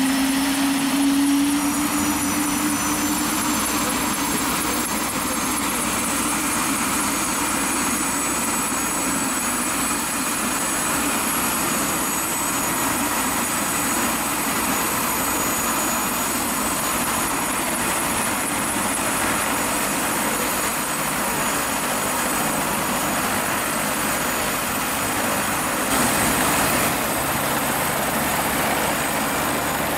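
Turbine helicopters running on the ground with rotors turning: a steady loud rotor and engine noise, with the turbine whine climbing in pitch over the first ten seconds or so as it spools up. There is a brief louder surge near the end.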